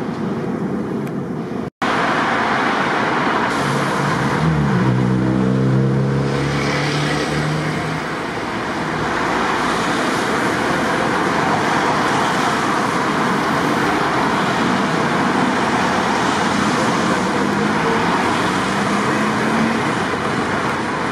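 Düwag TW6000 articulated trams running past on city tracks, with the steady noise of wheels and street traffic. Twice, a motor whine rises in pitch as a tram picks up speed.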